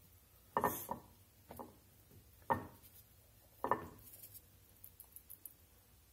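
A cube steak being pressed and patted into seasoned flour in a ceramic bowl by hand: four soft thuds, with light taps and clicks after them.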